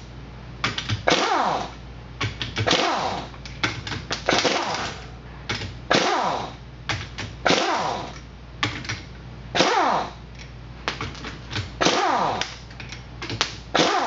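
Pneumatic wrench driving the ring gear bolts out of a stock differential carrier in short, repeated bursts, each winding down in pitch as it stops.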